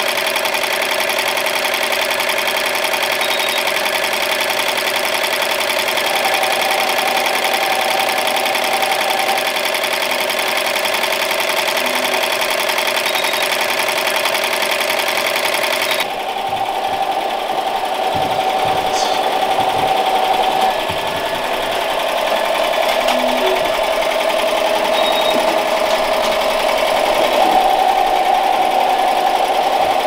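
Sewing machines running steadily. The sound changes abruptly about halfway through, to a slightly different machine sound.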